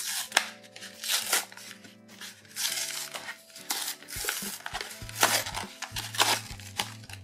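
Cardboard-backed plastic blister packaging being torn and crinkled open by hand, in repeated short bursts of tearing and crackling, over background music.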